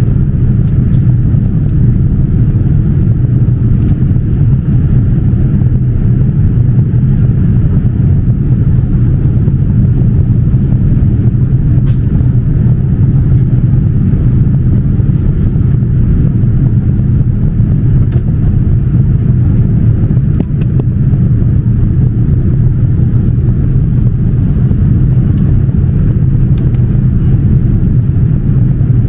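Steady, loud, low rumble of a Boeing 787-9 in flight: engine and airflow noise heard inside the passenger cabin.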